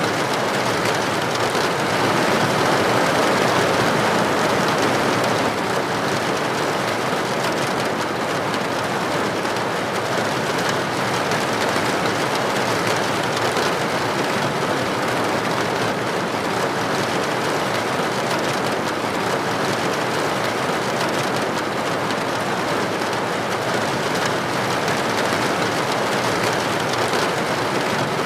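Steady rainfall: an even, dense hiss with no separate drops standing out, a little louder a few seconds in.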